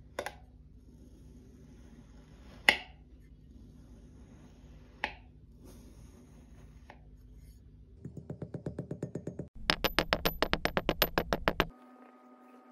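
A knife slicing through a block of kinetic sand: three chopping strokes a couple of seconds apart, each a sharp tap as the blade goes through onto the surface beneath. Later a rapid run of sharp clicks, about ten a second, grows louder and then cuts off suddenly.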